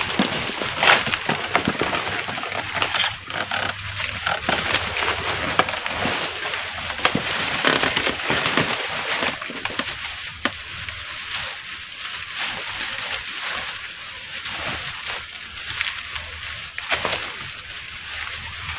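Plastic fruit bag on a banana bunch crinkling and rustling as it is handled and pulled off the fruit, an irregular crackling that is busier in the first half.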